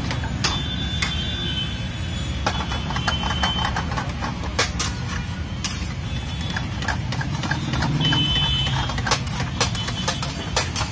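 A wooden spatula and a metal utensil clicking, knocking and scraping against a large pan as a thick egg gravy is stirred, in many quick irregular strokes. Under it runs a steady low rumble.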